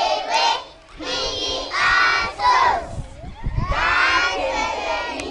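A crowd of young schoolchildren shouting together in short phrases with brief breaks between them.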